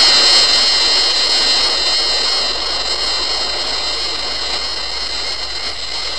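A Gigan sound effect from the Showa Godzilla films: a steady high whine made of several tones over a rushing hiss, starting abruptly and slowly easing in level.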